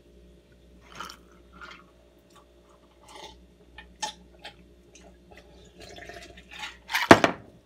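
Gulps of an iced drink from a glass mug, with ice shifting, then the glass mug set down on a stone countertop with a loud clunk about seven seconds in.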